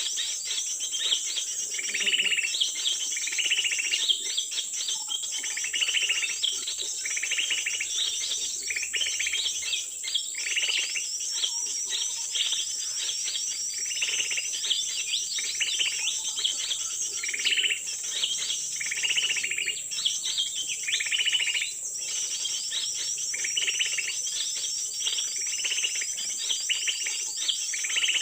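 Tropical forest ambience: a steady high-pitched insect drone, with a short bird call repeated about every one to two seconds throughout.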